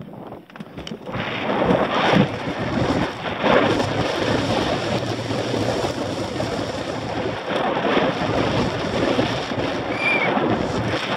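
Wind rushing over a helmet camera's microphone, mixed with the tyres and frame of a downhill mountain bike rattling over dirt and rock at speed, with several knocks from bumps. It is quieter at first and turns loud about a second in as the bike drops off the start ramp; a brief high squeak sounds near the end.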